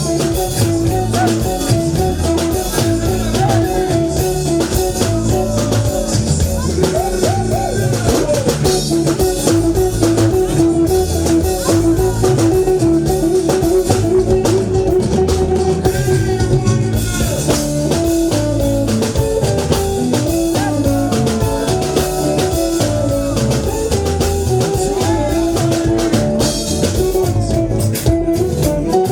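Live band playing a song, led by guitar over a drum kit with a steady beat.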